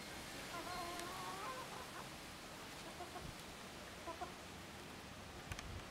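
A hen clucking softly: one faint wavering call of about a second near the start, then a couple of short quiet notes.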